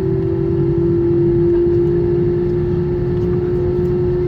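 Airbus A321's jet engines running at idle while the airliner taxis, heard inside the cabin as a steady hum over a low rumble.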